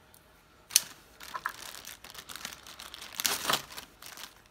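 Plastic wrapping around a chainsaw bar and chain crinkling as it is cut open and handled, with a sharp click about a second in and a louder stretch of crinkling about three seconds in.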